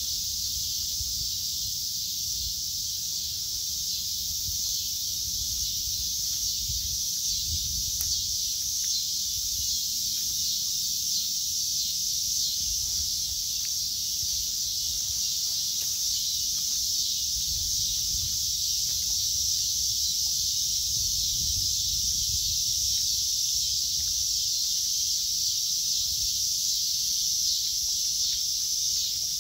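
Steady high-pitched insect chorus droning without a break, with a low uneven rumble underneath.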